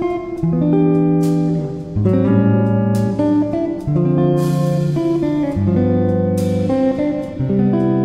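Background music led by plucked guitar, the chords changing about once a second.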